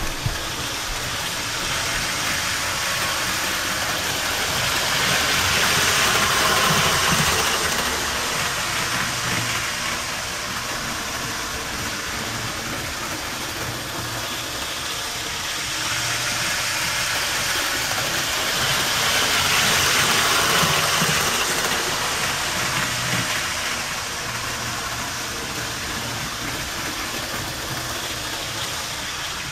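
OO gauge model trains running on the layout: a steady electric-motor whir and wheel-on-rail rumble, quite noisy, swelling twice as a train passes close by.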